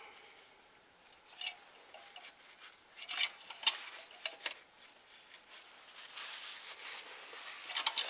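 Faint scattered clicks and light scrapes of an engine oil dipstick being slid into its tube and drawn back out, with a cloth rubbing.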